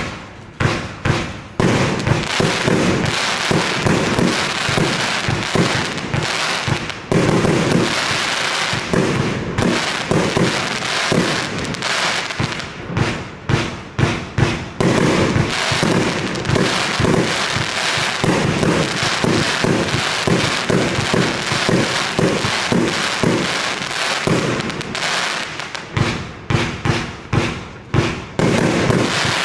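Evolution Fireworks 'Snowstorm' 60-shot compound fireworks cake firing: loud shots in rapid succession, separate and a fraction of a second apart at first, then packed into a dense, nearly unbroken barrage, spacing out again into distinct shots near the end.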